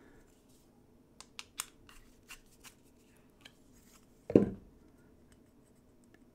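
Faint small clicks as a steel plane blade and its chip breaker are handled and turned in the hands, then a single dull thump on the wooden bench about four seconds in.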